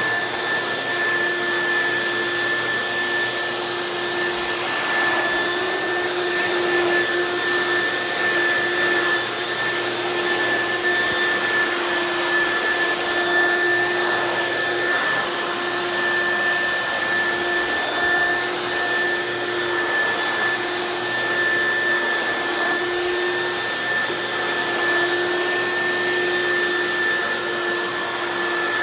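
Hoover Quik Broom S2541 suction-only stick vacuum running steadily as it is passed over a low-pile rug, its motor giving a constant whine over the rush of air.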